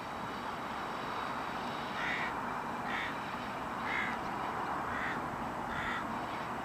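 A bird calling five times, harsh short calls about once a second, over the steady distant running of the diesel locomotives.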